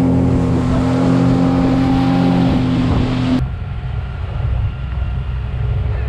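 Suzuki 250 outboard motor running steadily with a strong hum. About halfway through it cuts off abruptly to a quieter low rumble.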